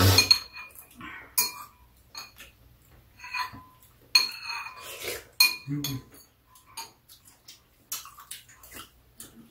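Metal spoons clinking and scraping against ceramic soup bowls while eating. The clinks come at irregular intervals, some with a brief ring.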